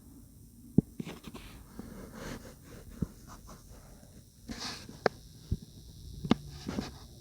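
A dog snuffling and breathing, with short hissy sniffs, mixed with about half a dozen sharp, scattered taps and clicks.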